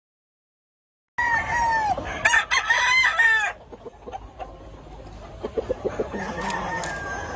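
A gamefowl rooster crows once, a single crow of about two seconds starting about a second in. It is followed by quieter clucking.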